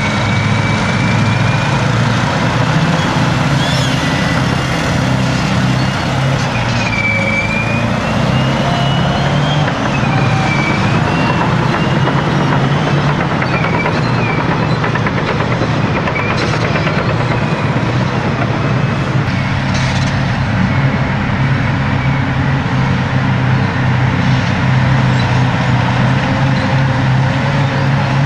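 Heavy diesel engines of a Caterpillar D10R bulldozer and a Caterpillar 631E wheel tractor-scraper running loud and steady under load while the dozer push-loads the scraper. A high whine wavers up and down in pitch through the first half.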